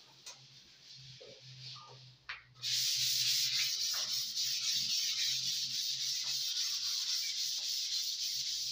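Hand sanding of dried wall putty with 180-grit waterproof sandpaper, done to smooth it before primer. Starting about two and a half seconds in, it makes a steady scratchy hiss of quick back-and-forth strokes.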